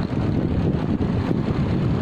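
Wind buffeting the microphone of a camera on a moving bicycle: a steady, low-heavy rush of noise.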